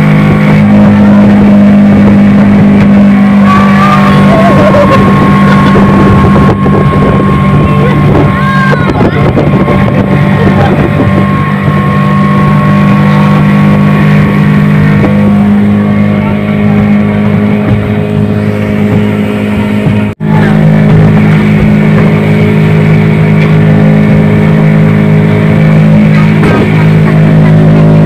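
Suzuki outboard motor driving a speedboat at a steady cruising speed, with a constant low drone. It briefly cuts out about two-thirds of the way through.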